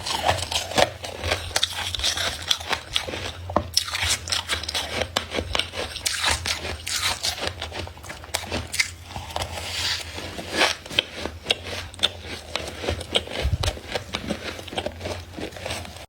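Freezer frost being scraped and crunched up close: a steady run of irregular crisp crackles, crunches and scrapes.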